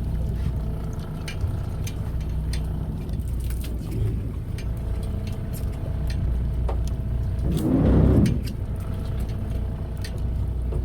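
Fishing boat's engine running with a steady low drone, with scattered light clicks and a louder rushing swell lasting about a second, about three quarters of the way through.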